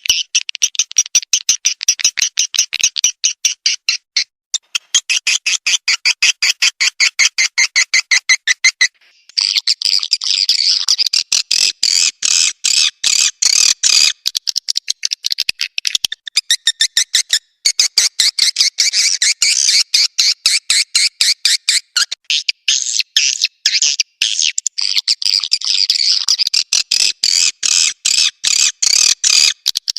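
Swiftlet lure recording of edible-nest swiftlet calls: dense, rapid trains of high, buzzy chirps, with brief breaks about four and nine seconds in. It is the kind of call sound played at a swiftlet house's entrance hole to draw swiftlets in and keep them there.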